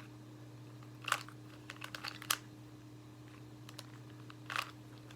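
Plastic layers of a Square-1 puzzle being turned by hand: short clicks and clacks about a second in, a quick run of them around two seconds, and one more near the end. A steady low hum lies underneath.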